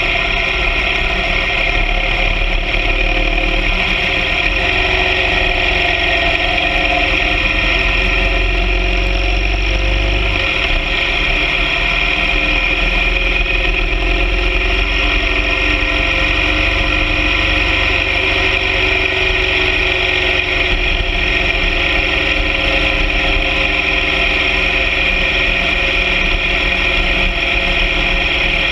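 BMW R 1200 GS Adventure sidecar rig under way, its boxer twin engine running steadily with road noise, with a slight change in the low rumble about ten seconds in.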